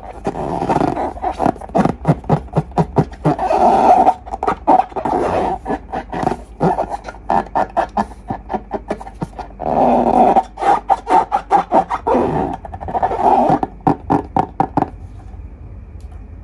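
Glossy slime being squeezed and kneaded by hand: rapid wet clicks and pops, with longer squelching, growl-like stretches where trapped air is pressed out.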